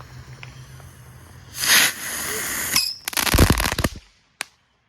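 Firecrackers going off: a loud rushing burst, then about a second of rapid sharp pops, like a string of firecrackers, ending with a single last crack.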